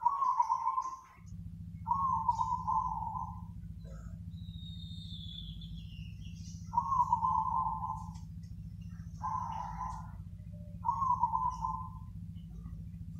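Zebra dove (perkutut) singing: five short trilled coo phrases, each about a second long, with pauses between them. Another bird gives a thin falling whistle about four seconds in, over a steady low hum.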